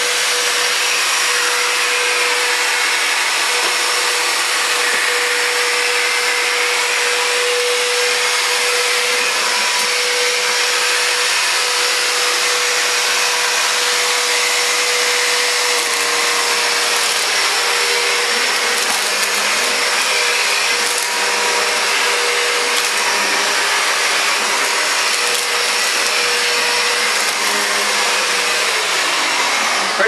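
Upright bagless vacuum cleaner running steadily with a steady whine, switched on as a test after its clogged hose was cleared. About halfway in, a low hum joins it. Near the end the motor is switched off and its whine falls in pitch as it spins down.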